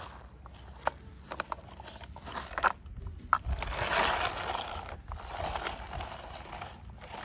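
Plastic toy front loader pushed by hand over gritty, stony dirt, crunching and scraping on the grit. A few sharp clicks in the first half, then longer stretches of crunching.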